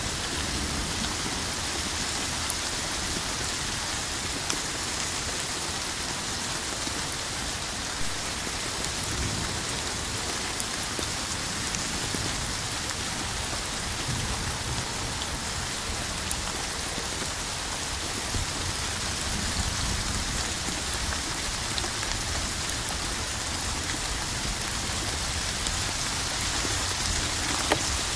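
Steady heavy rain falling on a hard surface, a constant hiss with a few louder single drop hits standing out.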